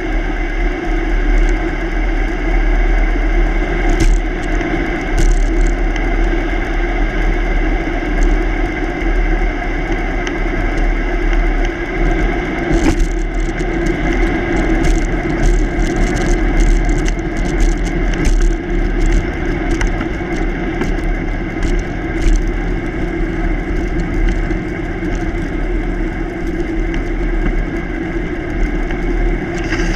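Steady rolling noise of a bicycle on an asphalt road: tyre rumble and wind buffeting on the bike-mounted microphone. A run of sharp clicks and ticks comes about halfway through.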